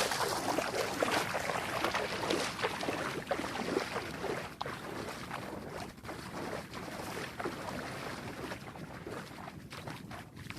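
River water rushing and splashing in an irregular wash, louder for the first few seconds and easing off after about halfway.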